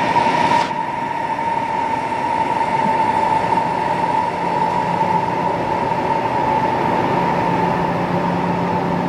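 High-speed bullet train running on the rails: steady rail noise with a constant high whine. The hiss above it drops away abruptly less than a second in.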